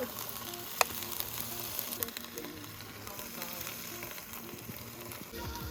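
Food sizzling in a hot pan: a steady frying hiss, with one sharp clink about a second in.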